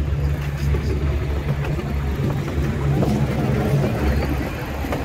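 Amusement-park ride train running along its track, heard from on board: a steady low drone with a constant haze of running noise.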